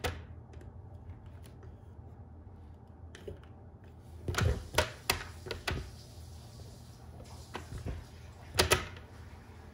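PetSafe dog door's plastic flap clicking and knocking against its frame as it is fitted and pushed by hand: a cluster of sharp clicks about four to six seconds in, and a quick double knock near the end.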